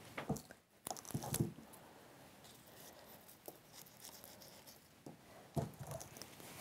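Faint rustling and a few light clicks as dried lavender stems and evergreen foliage are handled and pushed into a table arrangement, with a quiet stretch in the middle.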